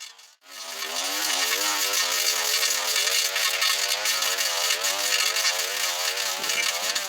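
A small two-stroke engine, from a brush cutter or chainsaw at work, running steadily at working speed with a slightly wavering pitch; it comes in under a second in, after a brief gap.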